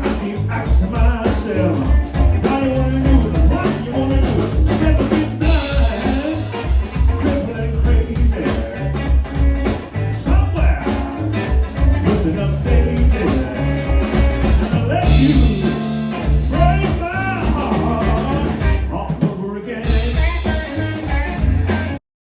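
Blues band playing an instrumental stretch, with drums keeping a steady beat. The music cuts off abruptly near the end.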